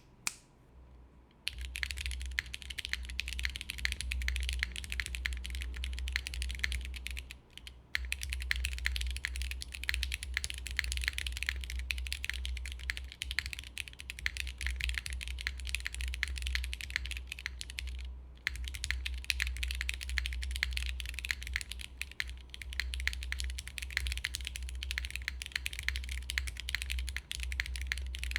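Continuous typing on a custom Unikorn R2.2 mechanical keyboard with lubed and filmed Cherry MX2A Black linear switches, GMK keycaps and a polypropylene plate. It is a dense stream of key strikes that starts about a second and a half in and pauses briefly twice. A steady low hum sits underneath.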